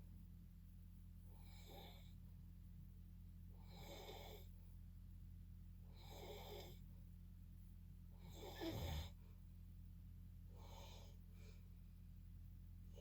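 A sleeping person snoring softly: five breaths, roughly one every two seconds, with a short, louder snort about nine seconds in. A steady low electrical hum runs underneath.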